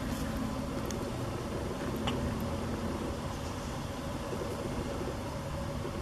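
Steady low rumble of wind on a camera microphone muffled by makeshift windproofing, with a couple of faint handling clicks about one and two seconds in.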